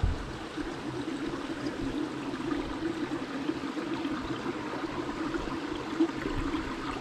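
Small rocky stream running steadily over stones, an even rush of water. Two brief low bumps break it, one right at the start and one about six seconds in.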